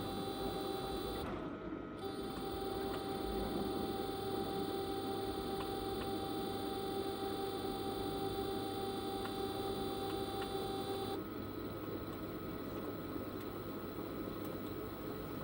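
Panasonic drum-type washing machine running, a steady motor whine made of several held tones over a low hum; the higher tones cut off about eleven seconds in, leaving the hum.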